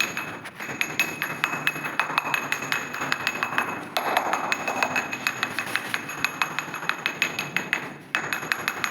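Laid floor tiles tapped rapidly with a hard object, a train of sharp clinks with a bright ring over them. The taps sound solid, with no hollow drumming: the tiles are fully bedded on their mortar and will not rock or sound hollow.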